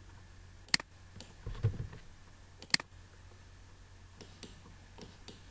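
Computer mouse and keyboard clicks: two sharp clicks about two seconds apart, then a few fainter ticks, with a soft low thump between the first two.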